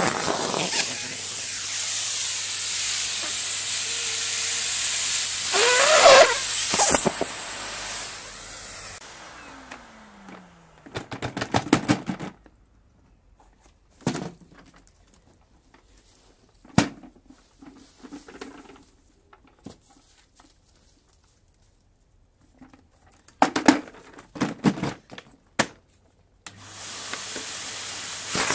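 Numatic Henry 160 vacuum cleaner running with a loud rushing hiss of air as it sucks up leaves, with rattles of leaves going up the hose. About nine seconds in it is switched off and the motor winds down in a falling whine, leaving scattered rustles and knocks, and near the end it is switched on again.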